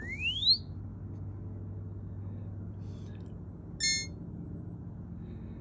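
Paramount ME II telescope mount's control electronics beeping at power-up. A quick rising chirp comes at the start, then a second short beep near four seconds in, over a steady low hum. The second beep is the one that signals the declination axis has been found and activated.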